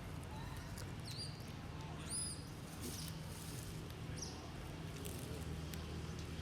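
Baby monkey giving three short, high-pitched squeaks, each rising and falling, over a low steady hum.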